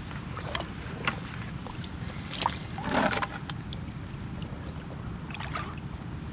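Steady low rumble of outdoor ambience on a tidal shore, with scattered short clicks and scrapes, the loudest about three seconds in.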